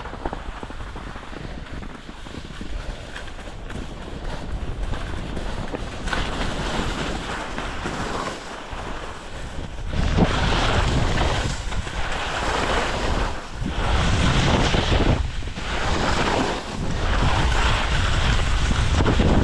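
Skis scraping and sliding over chopped-up snow with wind rushing over the microphone. About ten seconds in it gets louder, swelling and dropping roughly every one and a half seconds as the skis turn down the slope.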